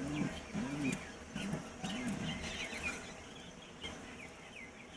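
Domestic pigeon cooing: a run of about four low, rolling coos, each a rise and fall in pitch, that stops a little after two seconds in. Small birds chirp faintly throughout.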